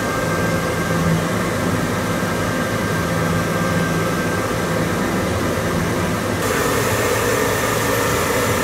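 Steady mechanical hum and hiss of a small submersible's machinery, with a faint thin whine above it. Its tone changes about six and a half seconds in.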